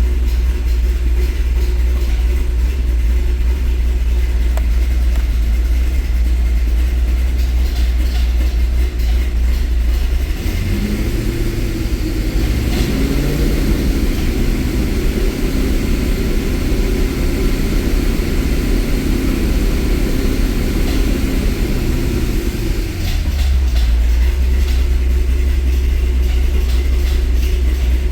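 Cammed LS7 7.0 L V8 of a 2008 Corvette Z06, with long-tube headers and Corsa Extreme mufflers, idling, then revved up about ten seconds in, held at a raised speed for about ten seconds, and dropped back to idle. It runs with a top-end tapping that ATF and fresh oil have not cured, which the owner is almost positive is a collapsed lifter.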